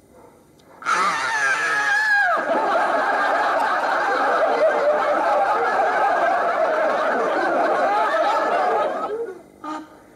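An older woman wailing loudly, starting about a second in. A long falling cry runs into a wavering, sobbing wail that breaks off near the end.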